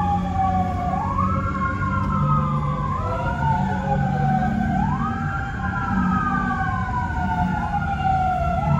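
Fire truck sirens wailing, each wail rising quickly and falling slowly, several overlapping. A car engine and road hum run underneath.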